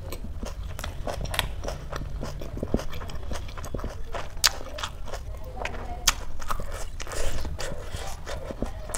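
Close-up chewing of crispy papad, with irregular sharp crunches over the sound of a full mouth chewing.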